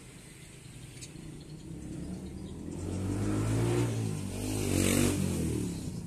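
A motor vehicle's engine passing by, growing louder to a peak about five seconds in and then fading.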